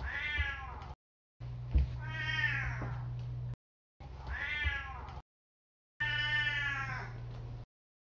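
Four long meows from an elderly male domestic cat, each rising then falling in pitch, spliced one after another with short silent gaps between them.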